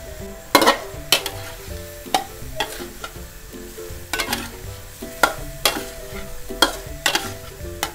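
A metal spatula scraping and clacking against a wok, about one or two strokes a second, as minced pork stir-fries and sizzles in sauce. Soft background music runs underneath.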